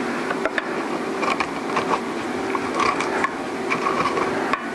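Handheld angle grinder running steadily while pressed against a metal lamp part, with scattered short scrapes and clicks as the disc bites.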